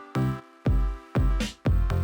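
Electronic outro music with a steady kick drum beating about twice a second under sustained synth chords.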